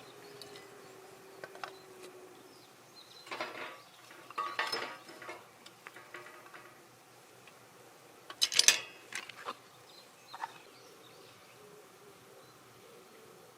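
Dishes and cutlery clinking and clattering in a few short bursts, the loudest about eight and a half seconds in.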